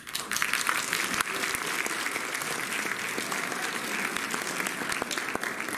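An audience applauding. The clapping breaks out suddenly, then goes on at a steady level.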